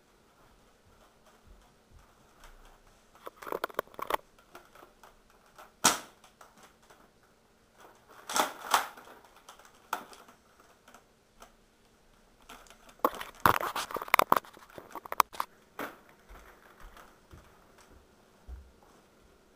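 Toy Nerf dart blaster being handled: short bursts of plastic clicking and clattering with a few single sharp clicks in between, the longest run of clicks in the second half.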